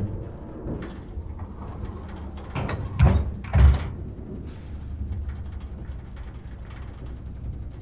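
A low, steady rumble with two heavy slams about half a second apart, a little past three seconds in.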